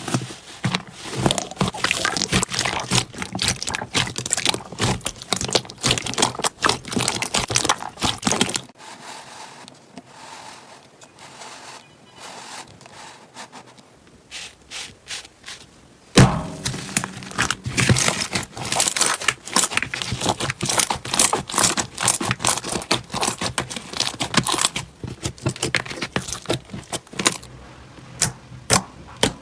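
Slime being squeezed and stretched by hand, making dense crackling and popping. The crackling thins out for several seconds partway through, then comes back sharp and dense.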